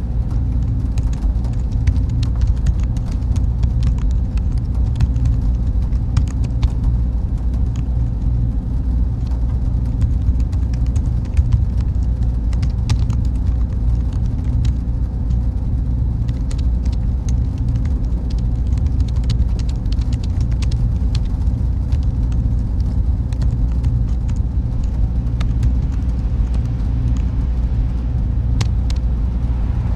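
Steady low rumble of ambient noise, with faint scattered ticks.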